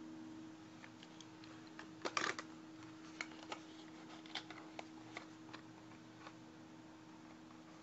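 Small clicks and taps of a toy car being handled and turned in the fingers. A quick cluster of clicks comes about two seconds in, then scattered single clicks. A faint steady hum runs underneath.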